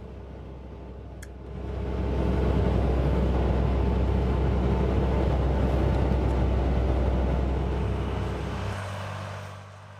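Claas Lexion combine harvester running while it unloads grain through its auger into a chaser bin: a steady low machinery drone with noise over it. It swells in about one and a half seconds in and fades out near the end.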